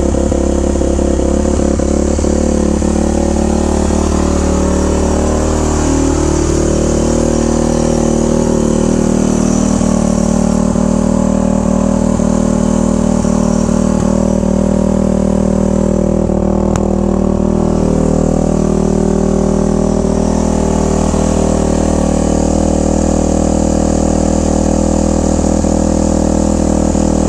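2001 Yamaha YZ426F's four-stroke single-cylinder engine running steadily at idle after being kick-started.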